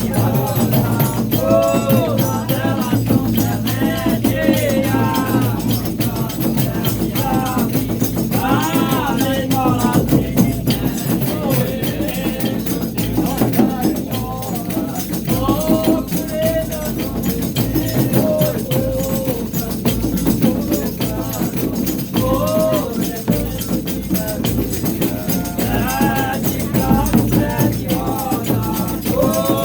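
Reisado folk music: voices singing a melodic line over steadily shaken rattles and percussion.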